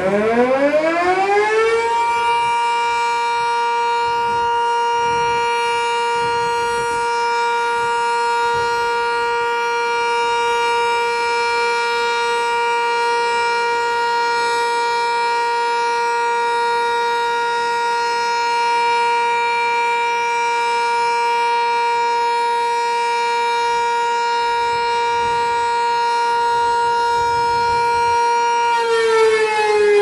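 Sentry 3V8 outdoor warning siren winding up over the first two seconds, then holding a loud, steady two-tone note for almost half a minute. Near the end its pitch begins to fall as it winds down.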